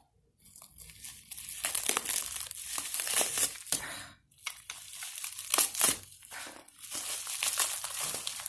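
Packaging wrapping crinkling and tearing in irregular crackly bursts as a fire alarm pull station is unwrapped by hand, with a short pause about halfway through.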